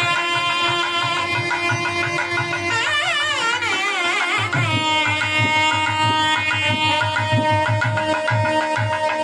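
Indian classical-style instrumental music: a melody with wavering, sliding notes over a steady drone, kept by a regular hand-drum beat.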